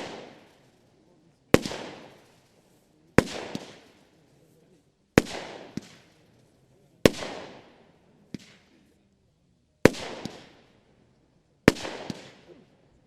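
Pangu Behai consumer firework battery firing single shots, six sharp bangs about every two seconds, each trailing off in a fading hiss, with a few smaller pops between them.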